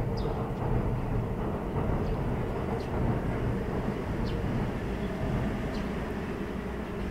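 Steady low rumble of distant traffic, with a faint constant hum in it, and a few short high bird chirps every second or two.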